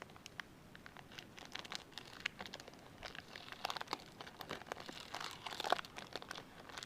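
Plastic trading-card pack wrapper crinkling and crackling in the hands as it is torn open, with dense irregular crackles that get busier about halfway through.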